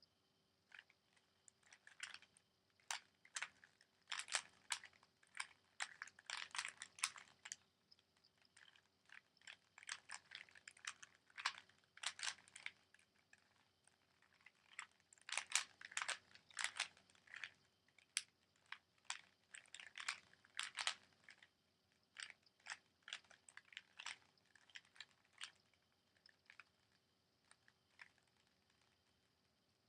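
Rubik's Cube being turned fast by hand in a speedsolve: quick runs of plastic clicks and clacks as the layers are twisted, broken by short pauses. The turning stops a few seconds before the end.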